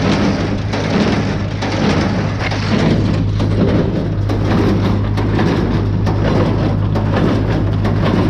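Tractor engine and hay baler running steadily in the field, with a constant low hum under a dense mechanical noise and a faint regular knock about once a second.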